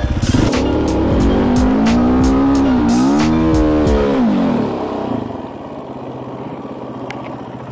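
Enduro motorcycle engine revving hard under load as the bike climbs a steep sand slope. Its pitch rises, then falls away about four to five seconds in as the bike runs out of speed partway up, too little run-up for the climb. It then runs low and uneven.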